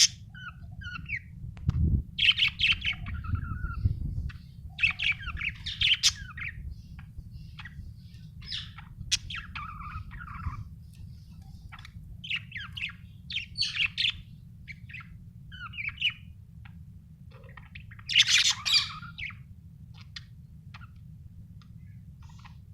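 Budgerigar chirping and chattering in irregular bursts of short high chirps, with a louder burst near the end, over a steady low hum.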